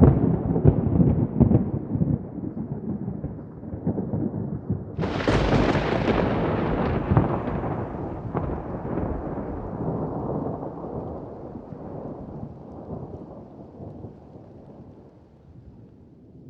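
Thunder: a low rumbling peal at the start, then a sharp crack about five seconds in that rolls into a long rumble, fading away over the next ten seconds.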